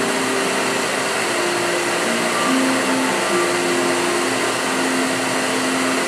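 Propane torch flame hissing steadily while a cordless Black & Decker variable-speed drill spins a brass cartridge case in the flame to anneal its neck and shoulder; the drill motor's hum steps up and down in pitch a few times.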